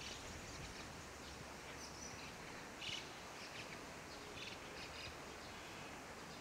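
Small birds chirping in short, scattered calls over faint outdoor background noise, the loudest call about three seconds in.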